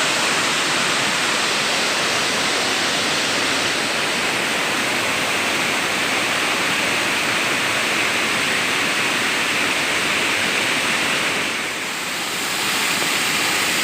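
Waterfall on a river: a steady rush of falling water that dips briefly near the end.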